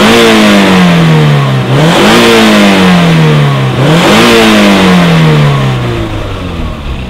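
Toyota MR2 Roadster's 1ZZ 1.8-litre four-cylinder engine free-revved while stationary, heard at the exhaust. Three blips of the throttle to about 4,500 rpm: each time the revs climb quickly and then sink back slowly, the last one dying down near the end.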